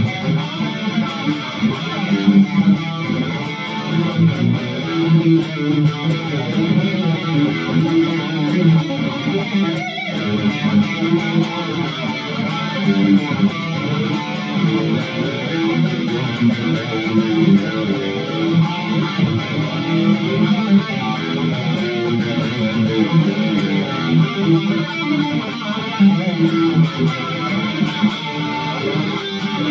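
ESP LTD SN-1000 electric guitar playing rhythm parts, with a brief break about ten seconds in.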